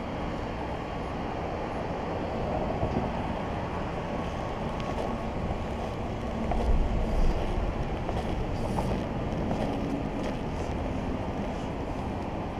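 Steady low rumble of motor traffic, swelling louder for about a second a little past halfway.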